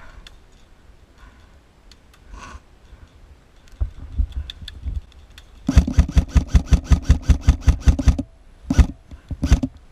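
Airsoft electric gun firing a long rapid full-auto burst of about two and a half seconds, then a single shot and a short burst near the end.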